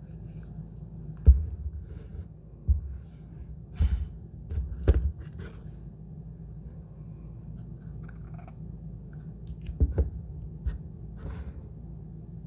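Perfume box and packaging being handled: a scatter of short knocks and rustles, loudest a little over a second in and around four to five seconds in, over a steady low hum.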